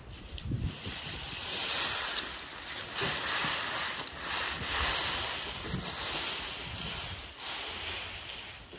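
Dry loose straw rustling and swishing as it is shaken out and spread over a concrete floor, an uneven continuous hiss that dies down near the end.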